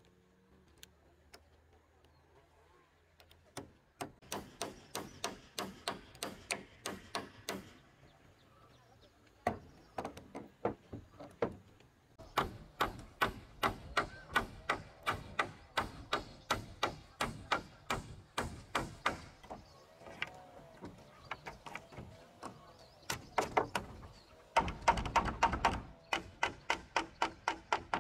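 Hammers driving nails into a wooden roof frame: runs of sharp knocks about three a second, pausing briefly, then denser when two hammers go at once.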